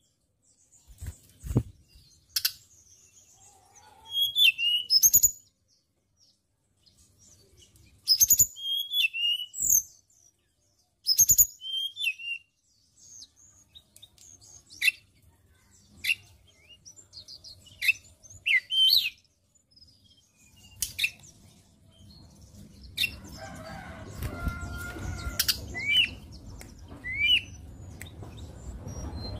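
Hill blue flycatcher singing in short bursts of quick, high, sweeping notes separated by pauses, with a few sharp clicks between phrases. A low rumbling background noise builds over the last several seconds.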